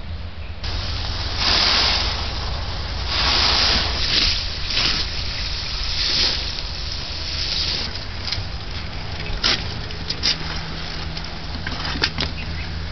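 Loose gravelly fill being scooped and poured off the lid of a cooled oil-drum charcoal kiln to open it: a rattling, hissing pour of grit that swells in irregular bursts, with sharper clicks and knocks of stones near the end.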